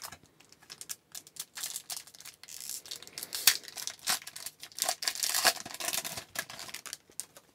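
A hockey card pack being torn open and handled: the wrapper tears and crinkles in irregular bursts, with small clicks and rustles as the cards are pulled out and shuffled.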